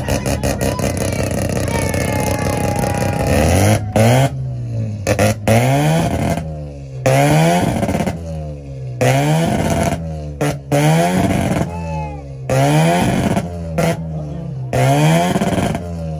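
A tuned car engine held at steady high revs for the first few seconds, then revved up and let drop again and again, about once every second or so, for a rev battle.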